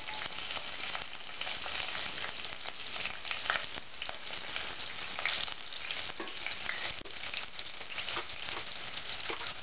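Sliced onions frying in hot oil: a steady sizzle with scattered small crackles as the slices are dropped into the oil.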